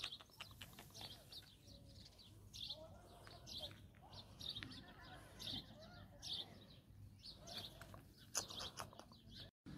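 Faint birds chirping in an aviary: short high chirps repeating about twice a second, with a few clicks near the start and near the end.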